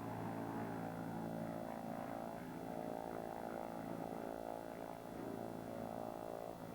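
Light aircraft's piston engine and propeller running at a steady speed, an even droning hum that holds one pitch.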